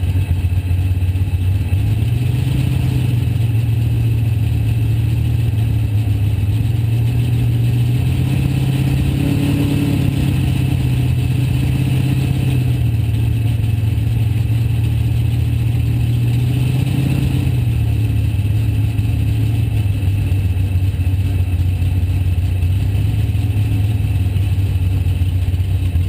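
Race car engine running hard at speed, heard from inside the stripped cockpit. Its note climbs after a couple of seconds, holds high, then drops back about two-thirds of the way through as the car comes off the power.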